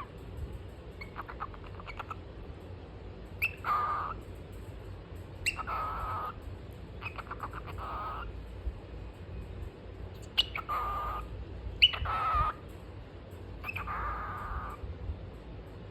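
Cockatiel calling in a series of short chirps, about seven. Each opens with a sharp high note and runs into a raspy, buzzing note of under a second.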